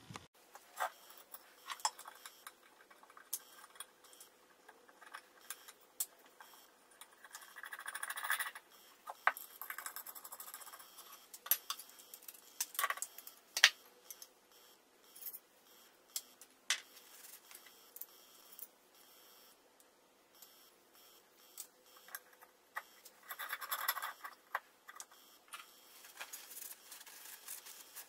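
Steel parts of a restored hand plane being handled and reassembled: scattered sharp clicks and clinks of the iron and cap against the plane body, with a longer scratchy rustle twice, from wiping with a shop towel.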